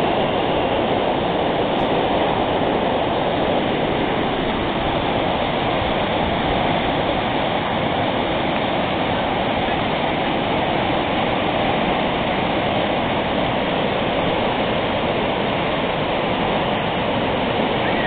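White-water river rapids rushing, a steady, unbroken roar of fast-flowing water.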